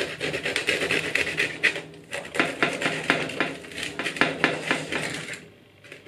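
Knife sawing back and forth through the crust of a baked baguette on a metal baking tray: fast, crackling strokes, with a brief pause about two seconds in and a quieter lull near the end.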